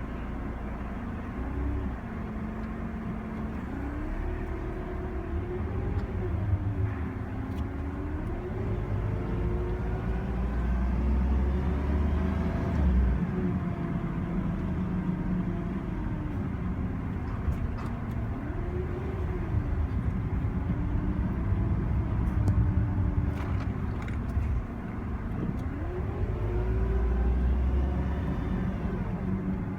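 A failing alternator on a Suzuki Wagon R RR (MC21S) gives a droning "wooon" whine over the running engine. The whine's pitch rises and falls several times along with engine speed. The owner calls the alternator faulty: it charges weakly, at 13.9 V while driving and 12.6 V when stopped.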